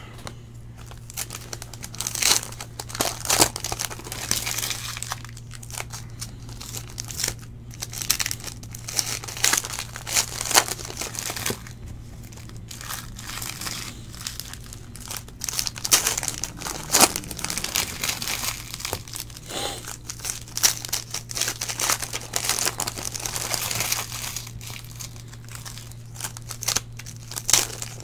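Foil trading-card pack wrappers being torn open and crinkled by hand, in irregular bursts of crackling.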